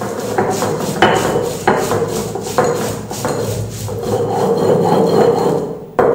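Stone roller grinding on a stone grinding slab (ammi kal), crushing coriander seeds, dried red chillies and garlic into a wet masala paste: gritty back-and-forth rubbing strokes. Each stroke starts with a sharp scrape, about one a second at first, and the rubbing runs more evenly later.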